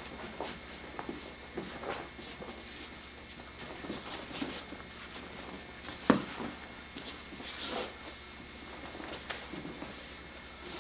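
Aikido throws and breakfalls: scattered footfalls, scuffs and cloth swishes of gi and hakama on the mat, with one sharp thud of a body landing about six seconds in.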